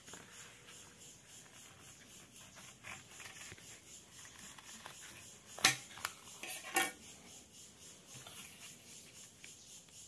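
Kitchen knife tapping and scraping on a tabletop as it cuts apart egg-carton cups of homemade solid fuel. About halfway through comes a quick cluster of four sharp knocks, the first the loudest.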